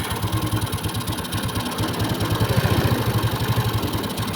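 Yamaha Mio scooter's single-cylinder engine idling with a steady, even pulse, just after starting, now running on a standard camshaft and rocker arm in place of a noisy RRA racing cam.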